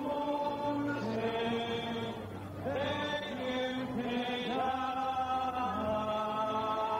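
A choir singing a slow, chant-like liturgical hymn in long held notes.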